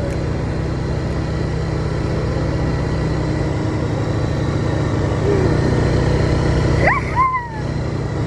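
ATV engine running steadily while riding. About seven seconds in, a child gives a short yell that rises and then falls.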